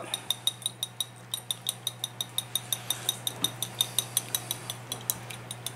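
Wire whisk beating eggs in a cut-glass bowl: quick, even clinks of the wires against the glass, several a second, each with a short ringing tone.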